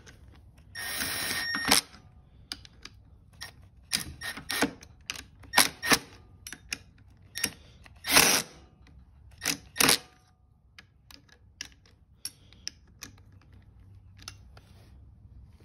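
Cordless power driver spinning the engine side-cover bolts down in short runs, the first about a second long with a steady whine. Sharp clicks and knocks of the socket and extension on the bolts come in between.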